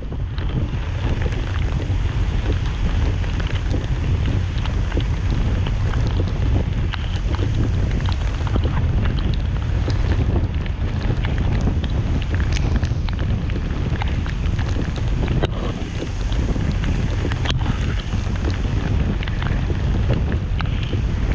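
A car driving on a wet road: a steady low rumble of engine and tyres with a rushing hiss, and scattered faint ticks.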